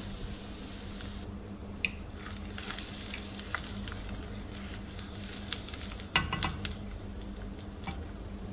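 Chopped onions sizzling in hot oil in a karahi, being fried toward golden brown, as a wooden spoon stirs them. The spoon knocks and scrapes against the pan now and then, with the loudest cluster of knocks about six seconds in.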